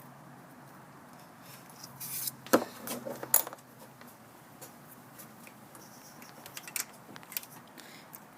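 Metal hand tools clinking and knocking against metal in a car's engine bay. There is a cluster of sharp clinks and one louder knock about two to three and a half seconds in, then scattered lighter clicks near the end.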